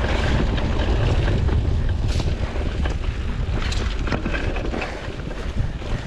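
Mountain bike descending a dry dirt and stone singletrack: wind rumble on the chest-mounted action camera's microphone, with the tyres rolling over the rough ground and many small clicks and rattles from the bike over the bumps.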